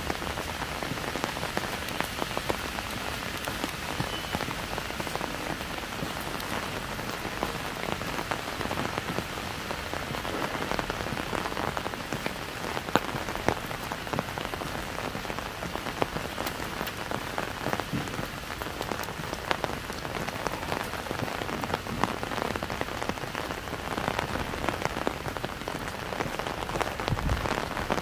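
Light rain falling on an umbrella held overhead: a steady hiss of drops with many separate small taps throughout.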